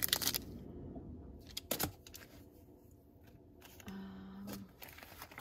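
Hands handling a cellophane-packaged craft item and fabric bows: a few crinkles and clicks of the plastic packet at the start and again near two seconds, then quiet rustling. A short hum about four seconds in.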